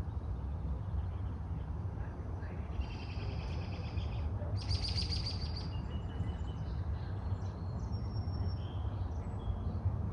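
Backyard birds chirping and trilling, busiest from about two and a half to five and a half seconds in, with scattered chirps after, over a steady low outdoor rumble.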